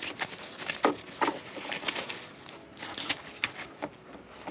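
Small plastic clicks and rubbing of gloved hands handling wiring connectors, plugging an LED headlight bulb's cable into the car's wiring: a handful of irregular short clicks, the sharpest about three and a half seconds in.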